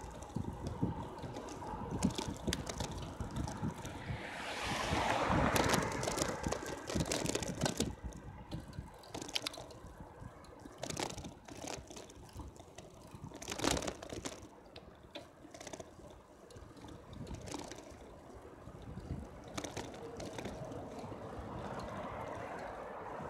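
Wind buffeting the microphone of a bicycle-mounted camera while riding, with tyre and road noise and scattered sharp rattles and knocks from the bike over bumps. The noise swells for a couple of seconds about five seconds in.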